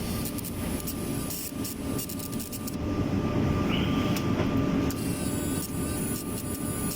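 Diesel forklift engine running steadily, with scattered light ticks.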